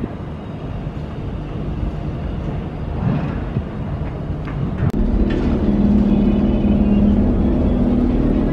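Low rumble of a passing vehicle, growing louder about five seconds in with a steady low hum.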